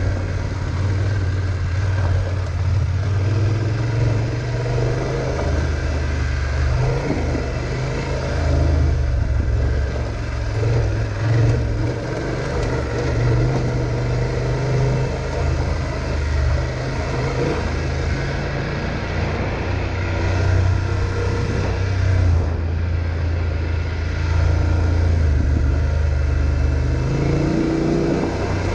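Motorcycle engine running as the bike rides a rough dirt trail, its low note swelling and easing over and over, with a steady rushing noise over it.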